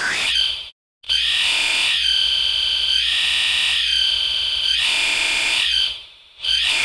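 Electronic screech sound effect: a harsh, shrill alarm-like tone that swells and fades about once a second. It cuts out completely for a moment about a second in and dips again near the end.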